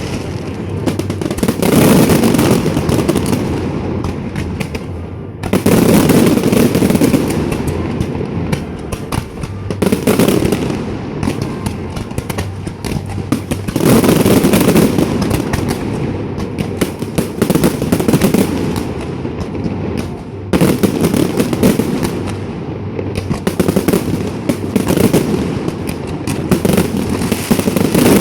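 Fireworks display: aerial shells boom every few seconds over continuous dense crackling and popping.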